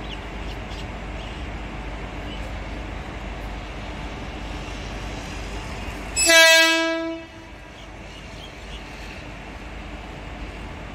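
An electric MEMU train sounds its horn once, about six seconds in: one steady, high-pitched blast of roughly a second that fades out. It is the departure signal, heard over steady railway-station background noise.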